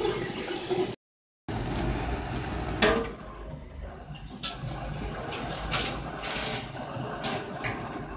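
Onion-tomato masala sizzling in a metal pot as it is stirred. A short cut follows, and then a metal spoon stirs a watery lentil mix in the pot, with scraping and several clinks against the pot, the loudest about three seconds in.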